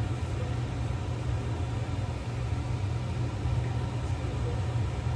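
A steady low rumble with no distinct events, the kind of background drone a fan or air conditioner makes.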